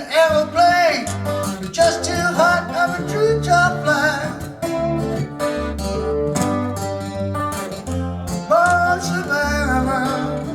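Recorded song playing back over hi-fi loudspeakers: a guitar-led country-rock passage with steady bass and plucked, strummed guitar notes.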